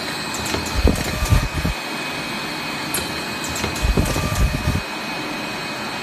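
Automatic zipper-bag packaging machine running: a steady mechanical hum with a cluster of low knocks and clunks repeating about every three seconds, each cycle marked by sharp clicks.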